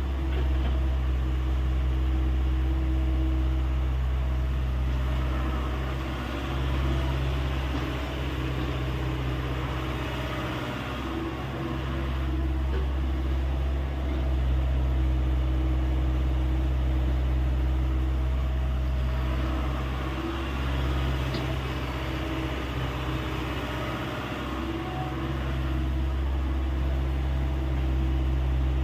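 Hyundai 85A excavator's diesel engine running steadily, its note dipping and recovering briefly several times as the machine works.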